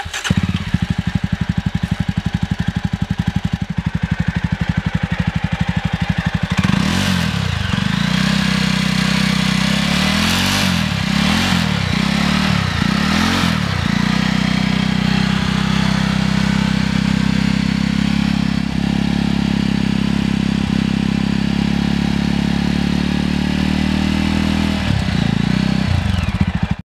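Jawa Classic BS6 motorcycle's single-cylinder engine idling through its exhaust. It is given several quick throttle blips about seven to fourteen seconds in, then settles back to a steady idle, with one short blip near the end.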